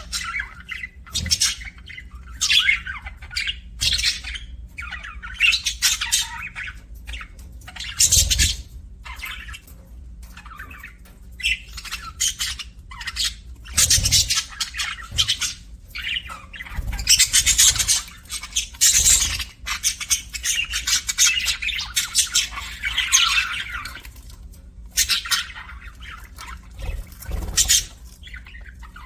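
Budgerigars chirping and chattering in quick, irregular bursts of squawks and warbles, busiest in the middle stretch: the contented chatter of happy pet budgies.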